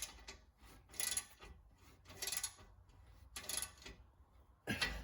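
Torque wrench ratcheting in short strokes, about one burst of clicks a second, as the exhaust flange nuts are tightened to about 25 foot-pounds. A heavier clack near the end.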